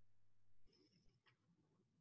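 Near silence: room tone, with a faint low hum that stops about two-thirds of a second in.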